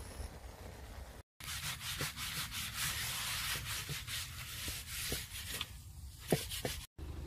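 A handful of fresh green leaves scrubbed back and forth over a wet cast-iron pot-lid griddle (sotttukkeong): a rough, scratchy rubbing that starts about a second in and stops abruptly near the end. A couple of sharp knocks come near the end.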